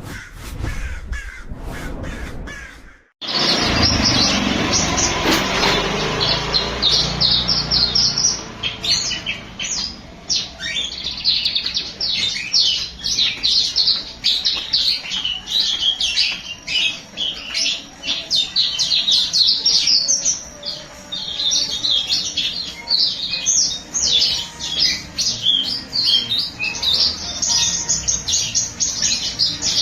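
A songbird singing a rapid, chattering song of quick high chirps in long continuous runs. It starts about three seconds in, after a short break.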